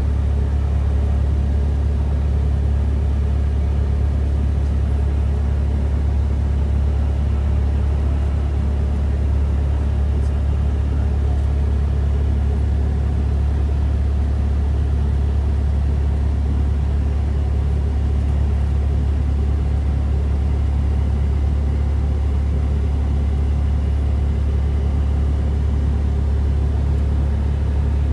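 Cessna 172 Skyhawk's piston engine and propeller running steadily while the plane taxis, heard inside the cabin as a loud, even low drone.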